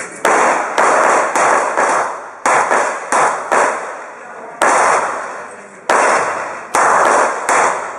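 A string of handgun shots in an IPSC stage, about a dozen, irregularly spaced from a quarter-second to a second apart, each cracking sharply and echoing off the concrete walls of the shooting bay.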